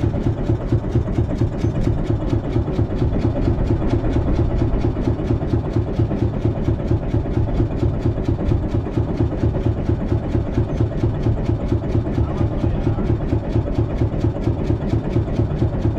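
A small wooden fishing boat's inboard engine running steadily at idle, with a fast, even thudding.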